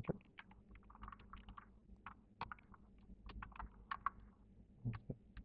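Typing on a computer keyboard: faint, irregular key clicks, a few per second.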